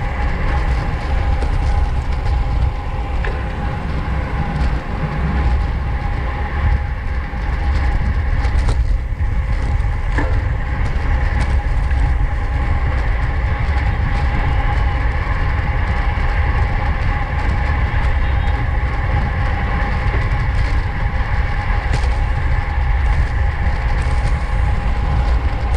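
Wind rush and road noise of a road bike riding fast in a race pack, steady throughout, with a steady high whine over a heavy low rumble.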